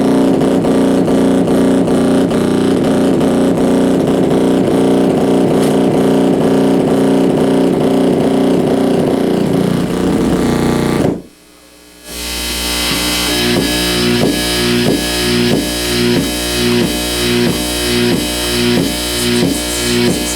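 Amplified electrical buzz from flickering compact fluorescent bulbs that cannot dim properly, picked up by exposed guitar cables and shaped by dimmer switches: a dense, distorted drone with steady hum tones. About halfway it cuts out suddenly for about a second, then comes back as a rhythmic pulsing, a little faster than one pulse a second.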